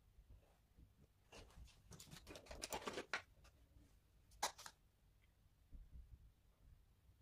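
Faint scratchy rustling of a makeup brush worked in a powder compact for about two seconds, then a single sharp tap a little over a second later.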